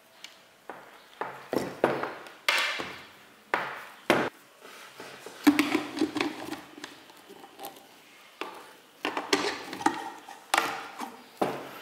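Welding-cable plugs knocking and clicking as they are handled and pushed into the sockets of a battery spot welder, with cable rustle: an irregular string of sharp taps and clacks.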